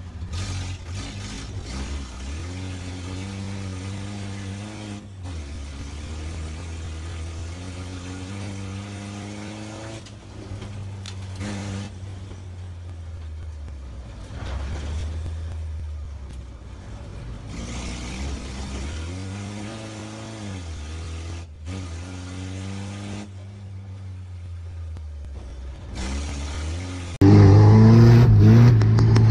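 Volvo 940GL banger race car's engine, heard from inside the car, revving up and dropping back over and over as it accelerates and slows around the track. Its exhaust is largely gone. Most of it is thin livestream audio with a few brief dropouts; about 27 seconds in the sound becomes much louder and fuller.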